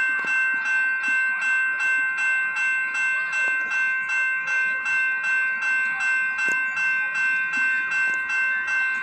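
Railway level-crossing warning bell ringing rapidly and evenly, about three strokes a second, each stroke ringing on in several steady tones, sounding for an approaching or departing train.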